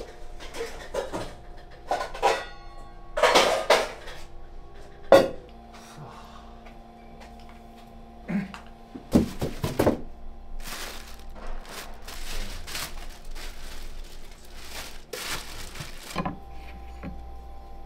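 Kitchen prep clatter: dishes, pots and utensils knocking and clinking, with one sharp, loud knock about five seconds in and scraping and rustling later on, over a steady hum.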